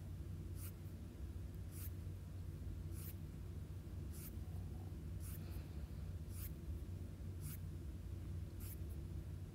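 Faint, short brushing swipes of a fingertip across an iPad's glass screen, about one a second, paging through a digital planner, over a steady low hum.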